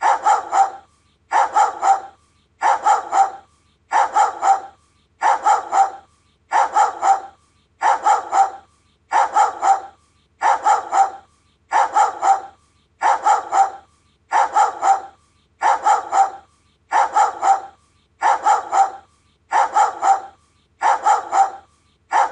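Doberman barking in quick bursts of three barks, the bursts repeating at an even pace about every second and a quarter.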